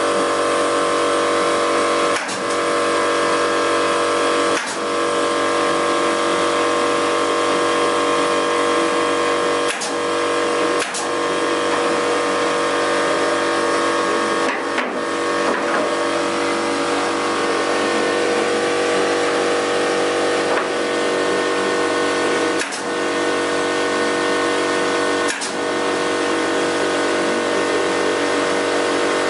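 A steady mechanical hum with several fixed pitches runs throughout. It is broken about nine times at irregular intervals by short sharp shots of a pneumatic nail gun fixing hardwood floorboards.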